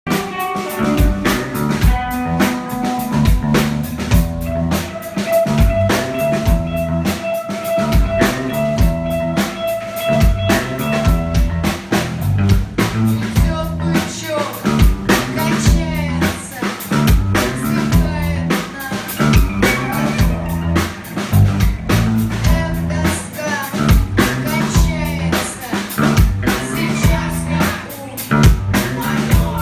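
Band music: a drum kit keeps a steady beat with kick and snare under bass and held instrument notes.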